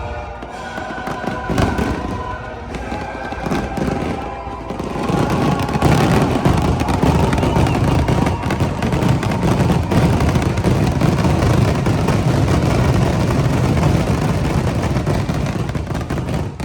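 Fireworks going off in a dense, unbroken barrage of bangs and crackle. Show music with a few scattered bursts fills the first few seconds, then fades under the barrage.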